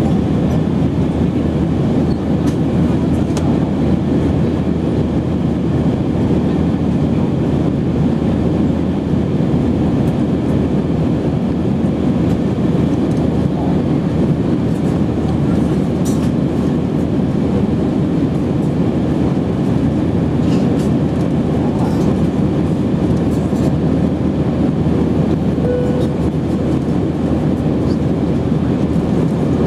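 Steady cabin noise of a jet airliner in flight: an even, low roar of engines and rushing air heard from inside the cabin by the wing.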